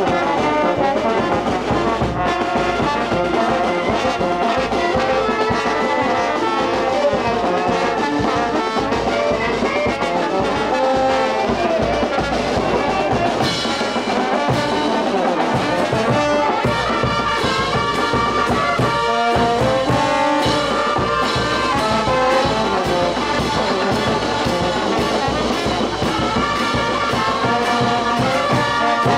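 Peruvian festival brass band playing live: trumpets and other brass carrying the tune over a sousaphone bass line, with bass drum, snare drum and cymbals keeping a steady beat.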